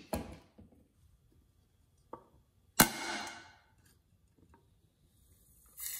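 A CO2 air pistol firing a single lead pellet into concrete at point-blank range: one sharp crack nearly three seconds in, with a short fading tail, after a light knock a little earlier.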